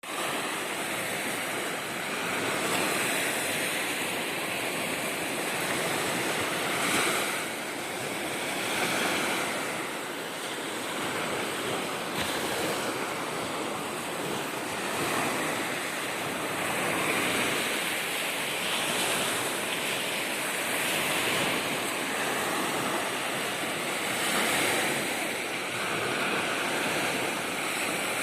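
Lake waves washing onto the shore, each wash swelling and falling back every couple of seconds, with some wind on the microphone.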